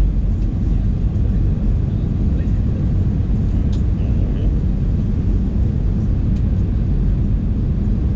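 Steady low rumble of an Airbus A320 heard from inside the passenger cabin: engine and airflow noise, unchanging in level.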